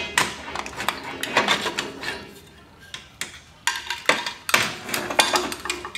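Steel tools and parts clinking and knocking together in irregular bursts while a control arm bushing press and spacer are set up on a car's rear control arm, with a short quieter pause in the middle.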